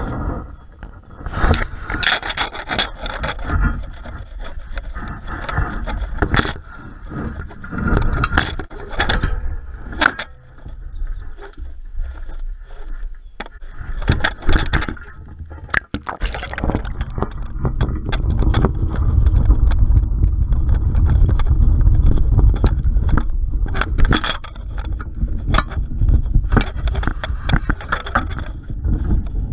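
Knocks, clicks and scraping on a camera fixed to the middle of a square lift net as the net is handled and lowered into the water. From a little past halfway, a dull, steady low rumble takes over as the camera lies under water.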